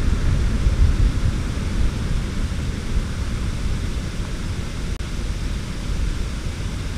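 Wind rumbling on the microphone: a steady, uneven low noise with no distinct events.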